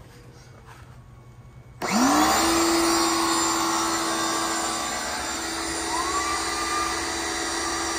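An 1800 PSI pressure washer driving a sewer jetter hose switches on nearly two seconds in. Its motor whines up in pitch, then runs steadily with a hum over a hiss. A second, higher whine rises and holds from about six seconds in.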